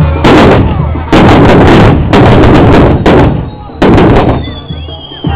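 Fireworks on a torito, a bull-shaped frame loaded with pyrotechnics, going off in about five loud, crackling blasts in quick succession. Near the end a high, slowly falling whistle begins.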